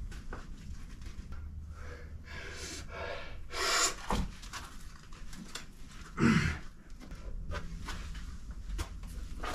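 A man breathing heavily, with a few loud breathy exhales and a short voiced sigh about six seconds in.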